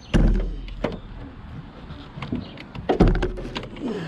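A heavy Group 49 AGM car battery being handled and lowered into its tray, its case knocking and clunking against the tray and surrounding parts. Two heavier thuds land at the start and about three seconds in, among lighter clicks.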